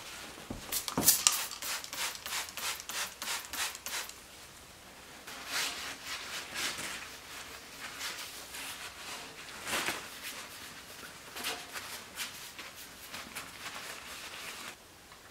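A cloth rubbing briskly on the glass of a fireplace insert's door, cleaning off soot with glass cleaner: bursts of quick back-and-forth strokes, about four a second at first, with a couple of knocks near the start.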